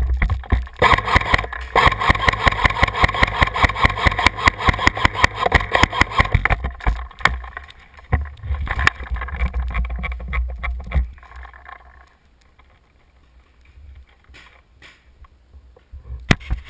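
Airsoft rifle firing rapid bursts: a fast, regular rattle over a steady whine lasting about six seconds. After that the shooting gives way to fainter handling and movement noise.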